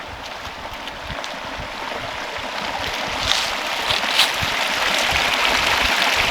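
A small mountain stream rushing and splashing where it flows across a dirt road, growing steadily louder. A couple of light sharp ticks sound a little past halfway.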